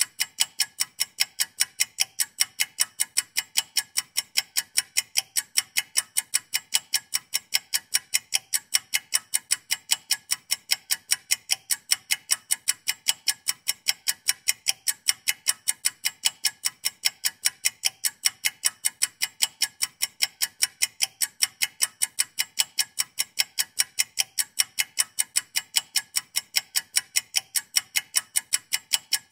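Ticking-clock sound effect running with an on-screen countdown timer: a rapid, even train of sharp, bright ticks, several a second, with no pause.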